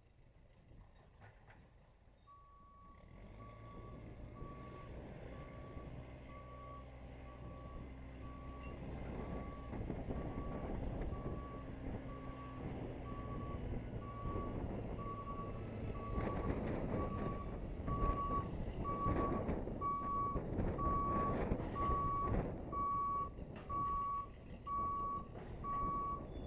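A Case 580C backhoe's backup alarm beeping at about one beep a second as the machine reverses. Its engine comes in a couple of seconds in and grows louder, and the beeps get louder toward the end.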